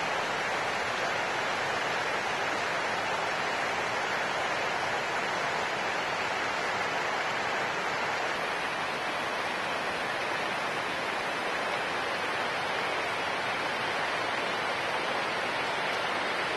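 Steady rushing of a river rapid: an even, unbroken water noise with no change in level.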